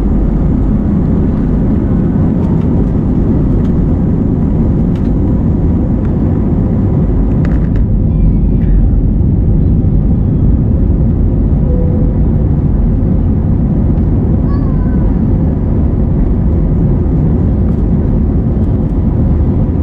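Steady, loud low rumble of a moving vehicle, with faint voices in the background.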